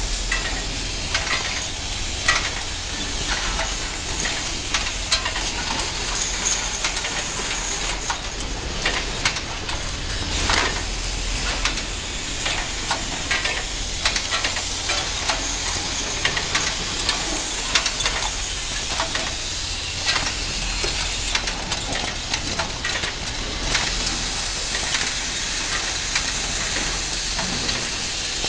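Automatic broom head assembly machinery running: a steady hiss over a low hum, with frequent irregular clicks and clacks from the mechanism.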